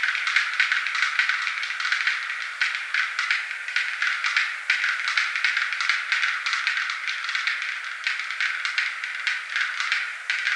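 Black-billed capercaillie display calls: a continuous, dense run of dry clicks.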